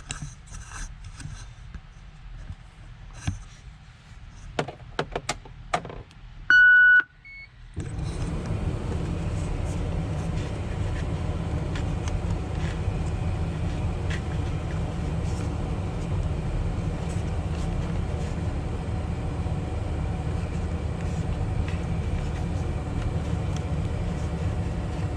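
Clicks and small plastic handling noises from a cab control panel, then a loud electronic beep lasting under a second. About eight seconds in, the Volvo L70F wheel loader starts a steady running hum that holds to the end.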